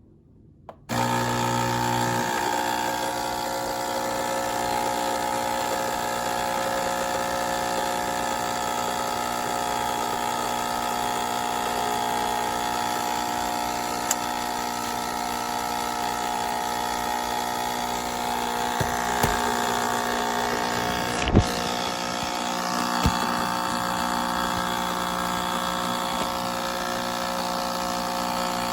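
Capsule espresso machine's pump running, a steady buzzing hum that starts abruptly about a second in, with a few short knocks about two-thirds of the way through.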